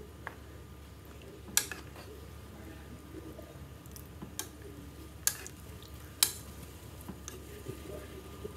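A spoon stirring silkworms in a pot of boiling salted water as they are blanched: soft sloshing, with three sharp knocks of the spoon against the pot about one and a half, five and six seconds in, and a few lighter clicks.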